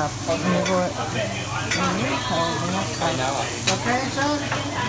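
Food sizzling on a teppanyaki steel griddle while a metal spatula scrapes and stirs it, with two sharp metal taps, about one and a half seconds in and near the end.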